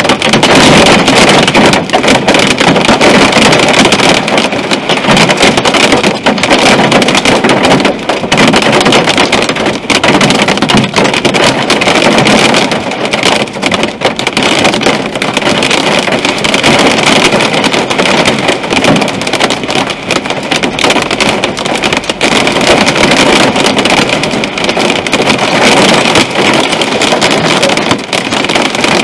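Hail and heavy rain drumming on a car's roof and windshield, heard from inside the cabin: a loud, dense, steady clatter of countless small hits.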